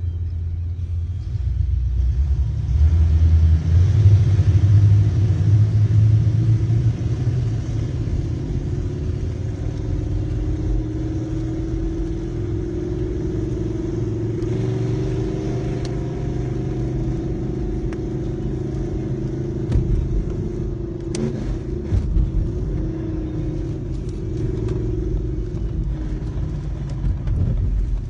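Engine and road noise heard inside a moving car's cabin, a steady low rumble that swells for a few seconds near the start. A few short clicks or knocks come about twenty seconds in.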